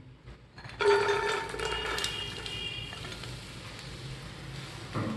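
Sweet corn kernels poured into a hot frying pan: a sudden clatter about a second in, with the pan ringing briefly, fading into a steady hiss as the kernels sit in the hot pan.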